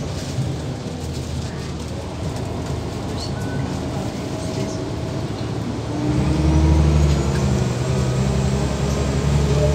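Scania L94UB single-decker bus engine running, then pulling harder about six seconds in, its note rising slowly as the bus accelerates.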